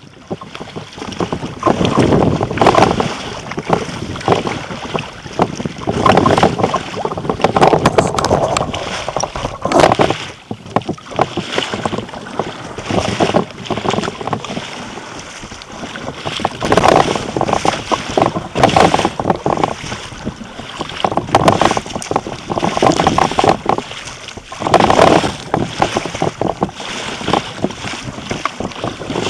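Water splashing and rushing against a sea kayak's hull on choppy ocean, with wind buffeting the microphone. The noise comes in uneven surges every couple of seconds.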